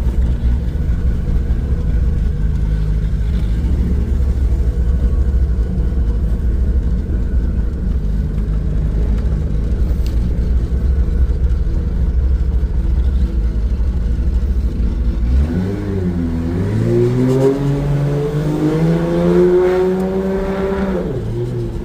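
Turbocharged 2JZ inline-six engine, freshly rebuilt, running with a steady deep low rumble. About 15 seconds in it accelerates, its pitch climbing for several seconds before dropping off near the end.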